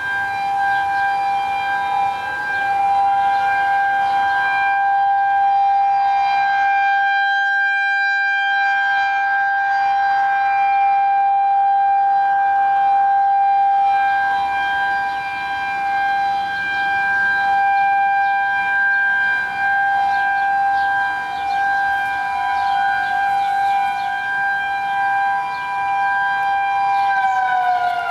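Several outdoor warning sirens, the nearest a Federal Signal 2001-130 rotating siren, sounding the steady Alert signal together as overlapping held tones. Near the end the loudest tone starts to fall in pitch as that siren begins to wind down, while another keeps its pitch.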